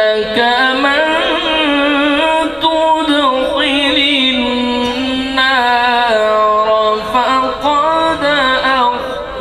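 A male qari's melodic Qur'an recitation (tilawat): one solo voice chanting in long held phrases, each note wavering in ornaments, with short breaks between phrases.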